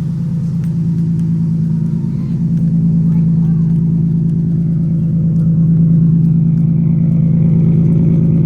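2017 Subaru WRX's turbocharged 2.0-litre flat-four engine running steadily with a deep, even exhaust drone, getting slightly louder about two and a half seconds in.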